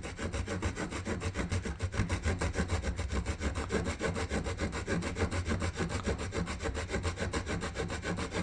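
Small folding saw blade of a Cabela's mini multi-tool sawing into a wooden stick in quick, steady back-and-forth strokes, cutting a notch.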